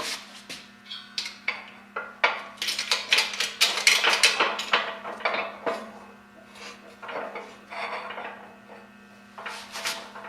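Steel tooling of a keyway broaching setup clinking and scraping: quick runs of sharp metal knocks, busiest in the middle, with a steady low hum underneath.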